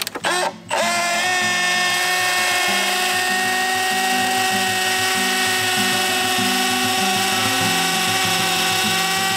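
Cordless drill driving a screw into a wooden board, its motor whining steadily at one pitch for about nine seconds after a slight rise as it spins up. A few ratchet wrench clicks come just before the drill starts.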